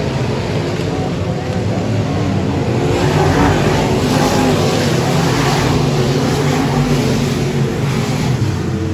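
Dirt-track race cars' engines running on the oval, heard through the grandstand fence. The sound grows louder about three seconds in as cars come by.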